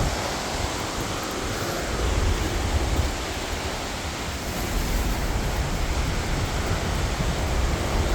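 A large waterfall heard close up: a steady, loud rush of falling water with a deep rumble underneath, likened to a jet plane taking off. Wind and spray buffet the microphone.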